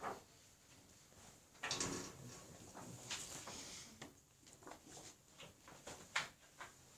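Scattered clicks, knocks and rustling handling noises, loudest about two seconds in, with a sharp click near the end.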